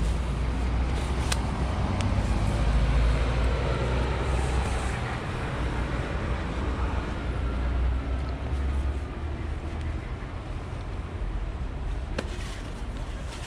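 Road traffic noise: a steady low vehicle rumble that eases off about two-thirds of the way through, with a couple of faint clicks.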